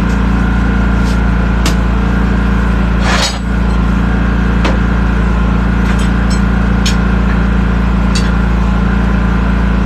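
A vehicle engine idling steadily, with a series of sharp metal clinks from hand tools, the loudest about three seconds in.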